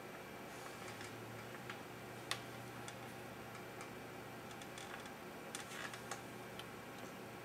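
Scattered light clicks and taps from fingers handling a BGA chip on crinkled aluminium foil, the sharpest about two seconds in and a small cluster near the end, over a faint steady hum and hiss.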